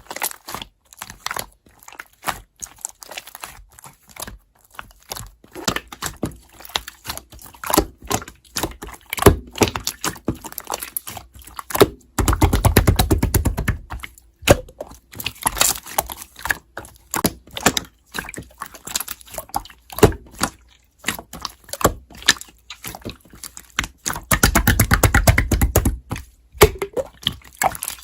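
Slime being squished and pressed by hand, giving a run of irregular small clicks and pops. There are two stretches of rapid, dense clicking, each about two seconds long: one about twelve seconds in, one near the end.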